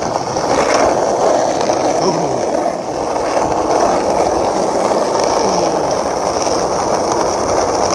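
Skateboard wheels rolling over tarmac: a loud, steady rolling noise with a brief dip about three seconds in.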